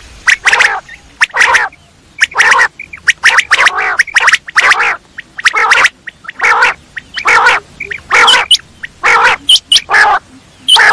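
Quail calling: a fast, irregular series of short calls, each a fraction of a second long, about one and a half a second, some coming in quick pairs.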